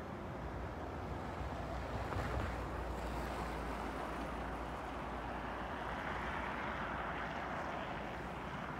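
Road traffic: cars passing on a snowy road, a steady hiss of tyres and engines that swells in the second half as a car goes by.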